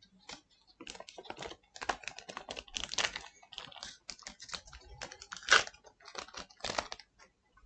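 Trading cards and a booster pack being handled by hand: a quick run of light clicks and rustles, with a couple of louder ones near the end.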